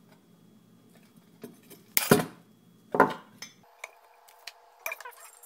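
Two loud metallic clanks about a second apart, with a few lighter clicks: a metal lamp base and fittings knocking together and against the table while the lamp is being taken apart.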